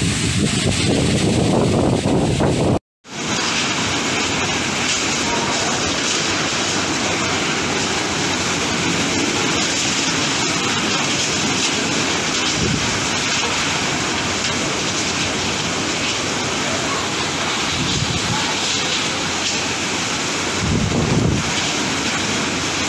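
Typhoon wind and heavy rain: a steady, dense rush of noise that cuts out for a moment about three seconds in, then carries on, with a gust swelling near the end.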